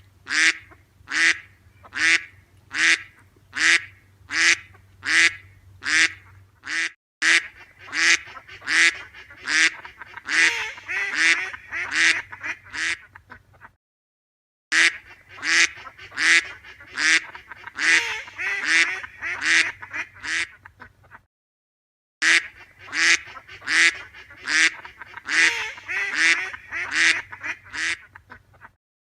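Ducks quacking in long, regular runs of short quacks at about two a second. In places the quacks overlap into a busier chorus, and each run breaks off abruptly into silence.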